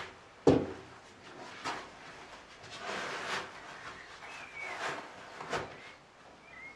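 A person pulling on boots on a wooden bench: rustling of clothing and boot leather with several sharp knocks, the loudest about half a second in.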